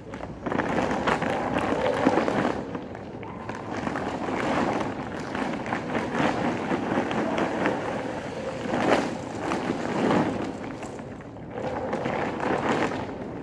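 Dry dog food poured from a plastic sack onto a concrete floor, with the sack rustling and kibble rattling, while several large dogs eat from the pile.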